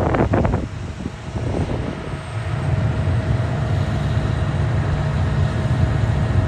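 A vehicle engine running steadily under load: a low, even drone with a faint steady whine above it. Gusts of wind hit the microphone in the first second.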